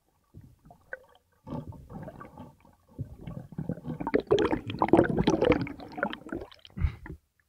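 Water gurgling and churning around an underwater camera during a spearfishing dive, in uneven bursts that grow louder about three seconds in.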